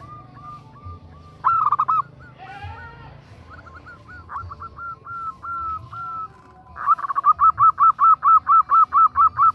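Female zebra dove (perkutut) calling: a string of soft, quickly repeated cooing notes, a short loud burst about a second and a half in, then a fast, loud run of notes at about five a second near the end.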